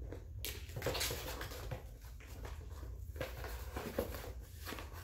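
Paper and cardboard packaging rustling and crinkling as it is handled, with scattered light taps and scrapes over a low steady hum.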